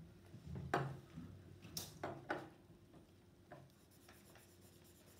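Faint rustling and a few soft knocks of handling noise in a small room, over a low steady hum.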